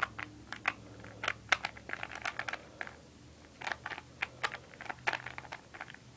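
3x3 Rubik's Cube being turned quickly through an algorithm: a rapid, irregular run of plastic clicks and clacks as the layers snap round, with a short pause about halfway.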